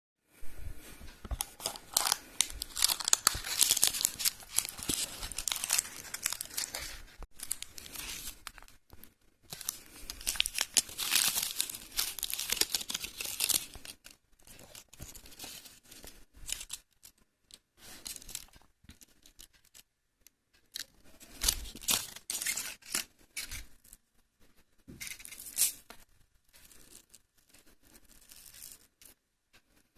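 Ferrero Rocher chocolate packaging being torn open and its wrappers crinkled, in long bursts of crackling with quieter handling in between.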